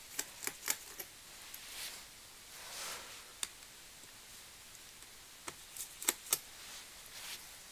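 Scattered clicks and taps of plastic and metal laptop parts being handled as the display lid is worked loose from the base at the hinges, with a soft rubbing sound about three seconds in and a quick run of sharper clicks around six seconds in.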